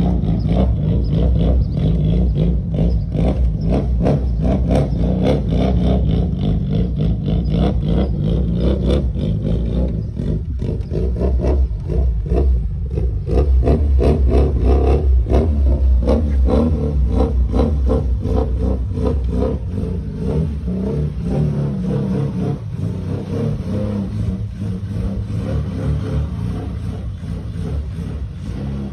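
Car-mounted sound wall (paredão de som) playing very loud, bass-heavy music with a fast beat, distorted by its own volume.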